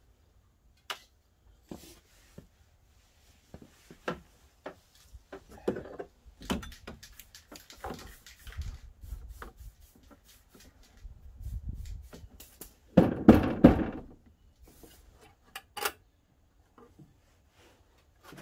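Hands rummaging in the stripped front end of a van, fishing for dropped nuts, bolts and washers: scattered small clicks, knocks and rustling against plastic trim and metal, with one louder burst of handling noise lasting about a second near the middle.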